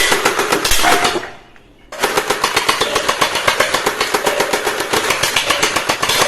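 Toy machine gun firing a rapid, even rattle that stops about a second in and starts again after a short pause.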